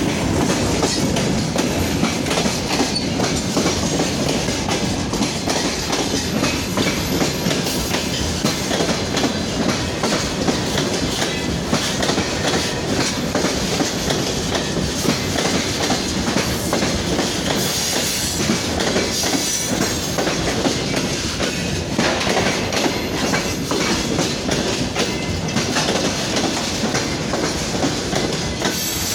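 Loaded freight wagons of a freight train rolling past at close range, a steady loud rumble with the wheels clattering over the rail joints.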